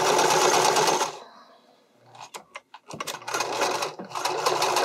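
Domestic sewing machine stitching across a folded spandex-and-elastic edge in short runs. It stops about a second in, gives a few light clicks, then runs again from about three seconds in with a brief pause just after four seconds.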